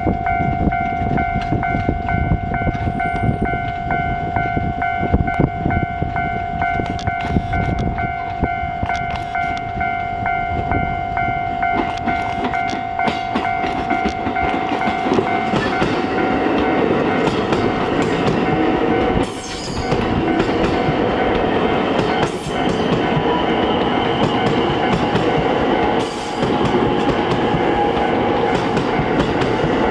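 A Japanese level crossing alarm rings steadily. From about twelve seconds in, a JR West 223/225 series electric rapid train passes over the crossing, its wheels clattering over the rail joints and the rumble growing loud, with brief lulls between cars.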